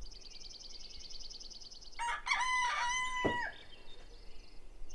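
A rooster crows once, about two seconds in: a few short notes and then a long held note that drops away at the end. Behind it, a small songbird sings a fast, high, even trill that breaks off for the crow and starts again at the end.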